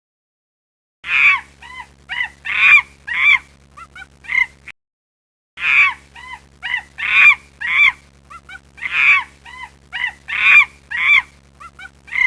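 A series of short, high animal cries, each arching up and down in pitch, over a steady low hum. The same run of cries plays twice, with about a second of silence between.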